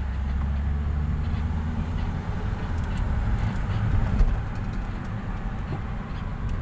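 Car driving in traffic, heard from inside the cabin: a steady low rumble of engine and road noise, with a brief bump about four seconds in.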